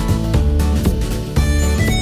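Background music: a steady-beat track with guitar and a strong bass line.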